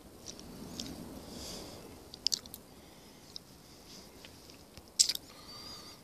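Twigs snapping and leaves rustling as someone pushes through dense forest undergrowth and fallen branches. There are a few sharp cracks, the loudest about five seconds in.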